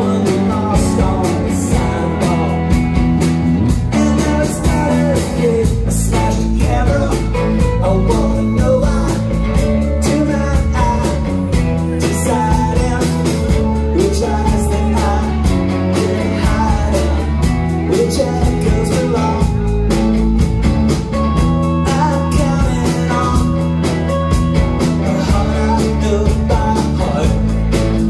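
A live rock band playing a song: electric guitar, acoustic guitar, bass guitar and drum kit, with a man singing lead.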